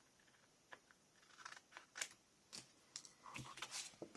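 Scissors cutting off paper trimmings: a few faint, scattered snips and clicks.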